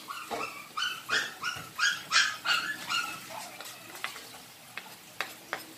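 Small Shih Tzu dogs yipping and whining in a quick run of short, high-pitched calls, about three a second, over the first three seconds: impatient, insistent dogs. A few sharp clicks follow in the later part.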